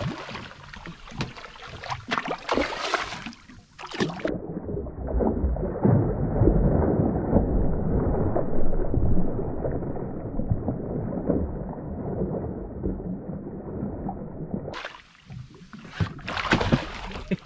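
Wind noise on the microphone and water sounds around a small boat. For about ten seconds in the middle the sound turns muffled, with only low rumbling noise coming through.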